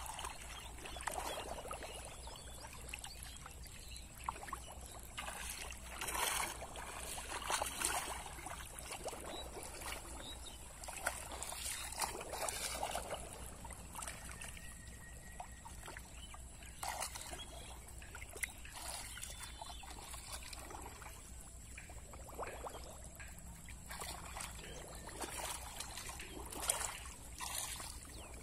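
Shallow water splashing and sloshing irregularly as hands grope through it and the mud beneath for fish, with scattered louder splashes.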